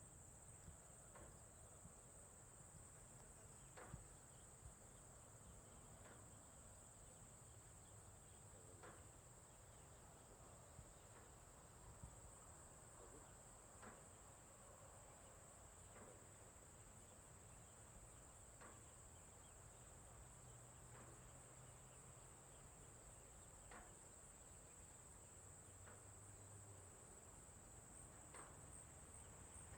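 Faint, steady high-pitched insect trilling that holds unbroken, with soft short ticks scattered every couple of seconds underneath.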